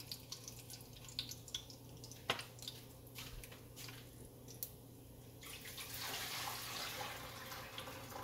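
Cumin seeds and dried red chillies crackling in hot oil in a wok: scattered small pops, with one sharper click about two seconds in and a steadier hiss over the last couple of seconds. This is the tempering stage, the chillies frying until they turn red.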